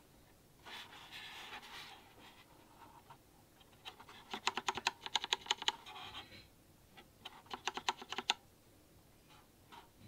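Controls of a Blackmagic DaVinci Resolve Speed Editor clicking in two quick runs of about ten clicks a second, after a short scratchy rustle of handling.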